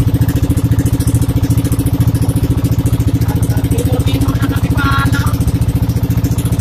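Engine of a motorised bangka outrigger boat running steadily underway, with a fast, even putter.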